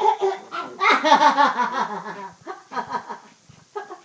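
A woman laughing in a run of quick, pulsing bursts, loudest about a second in, then breaking into shorter laughs with pauses.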